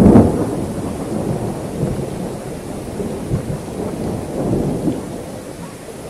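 Strong gusty wind rushing through oil palm fronds and buffeting the microphone in a deep rumble. A loud gust eases off in the first half second, and the wind keeps going more softly with further surges about two and four and a half seconds in.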